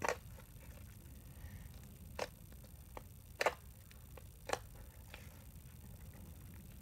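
Pink slime being poked on a tabletop, giving about five separate short, sharp clicks and pops with gaps of a second or more between them.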